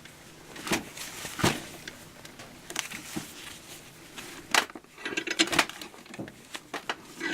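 Scattered metallic clinks and knocks of a steel chain being handled and repositioned in a bench vise while its lap link is squeezed shut, about a dozen irregular taps, busiest in the middle and near the end.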